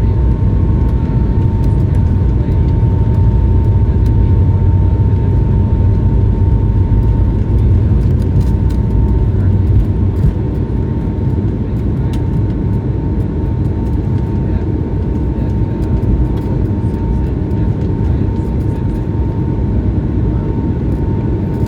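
Airbus A220-100's Pratt & Whitney PW1500G geared turbofans at takeoff power, heard inside the cabin: a heavy, steady rumble with a steady whine and small rattles from the cabin. The rumble eases slightly about ten seconds in as the airliner goes into its climb after takeoff.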